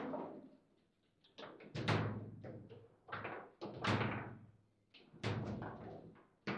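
Foosball table in play: sharp knocks and clacks of the ball striking the plastic figures and table walls, with thuds from the rods, in quick irregular clusters broken by a short pause about a second in.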